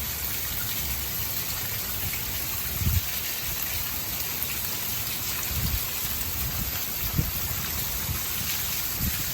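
Steady rain falling, an even hiss, with a few soft low thumps about three, six and seven seconds in.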